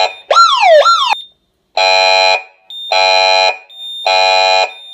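Residential alarm system speaker sounding. Near the start it gives two quick falling siren sweeps, then three evenly spaced steady tone blasts, the temporal-three pattern that signals a fire alarm.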